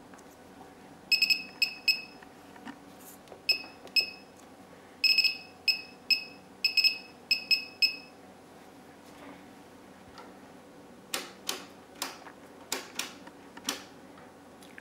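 Digital function generator beeping at each key press: a run of short, high, identical beeps in quick groups over the first eight seconds. Near the end come several sharp clicks from the oscilloscope's front-panel controls being switched.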